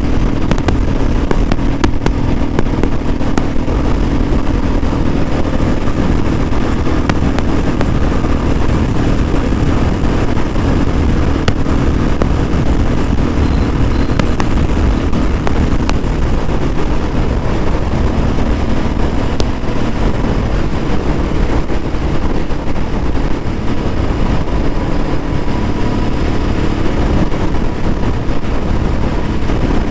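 Royal Enfield Bullet 350's single-cylinder engine and exhaust running steadily under way, its note shifting a little about halfway through as the speed changes.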